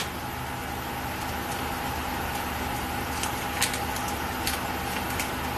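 A steady mechanical hum with a few faint ticks and crinkles, from a small plastic seal-kit package being worked open.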